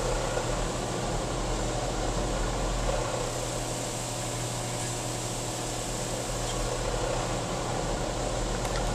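Steady air-blower hum with a constant low drone underneath, heard from inside a car's cabin.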